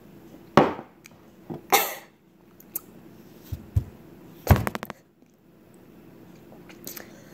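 A person's sharp breaths and throat noises mixed with a few knocks and taps, including a quick run of taps about halfway through, as a shot of pickle juice is readied and downed.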